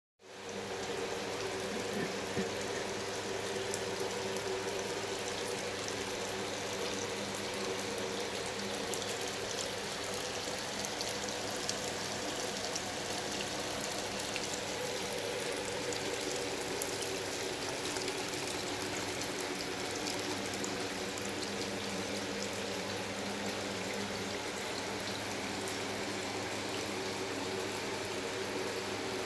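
Water trickling and pouring steadily through a saltwater aquarium and pond system, with a fine fizzing crackle, over a steady low hum.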